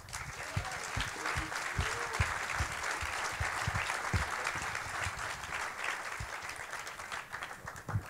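Audience applauding, slowly fading toward the end.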